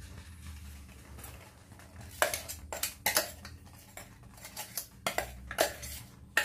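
A steel spoon clinking and scraping against a steel bowl as crushed coconut mix is pushed and knocked out of it into a cooking pan. A run of sharp, uneven clinks starts about two seconds in.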